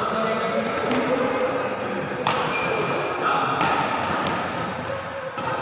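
A few sharp badminton racket hits on shuttlecocks and thuds of feet on the court floor in a large indoor sports hall, over a steady background of distant voices.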